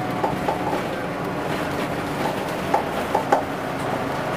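Vintage bus interior on the move: a steady engine drone with a handful of short sharp knocks and rattles, most of them bunched around three seconds in.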